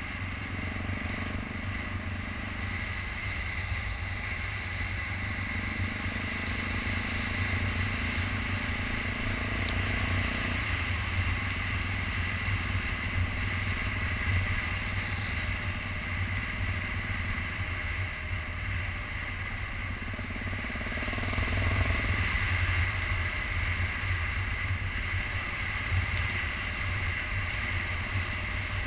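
BMW G650GS Sertao's single-cylinder engine running under way on a dirt road. Its note steps up and down a few times as the throttle and gears change, over a steady low rumble.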